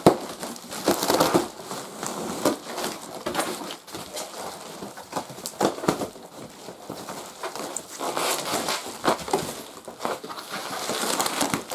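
Cardboard box and packing being pulled and wrestled apart by hand: irregular crinkling, crunching and scraping with scattered sharp clicks, as a tightly packed vacuum cleaner is worked out of its box.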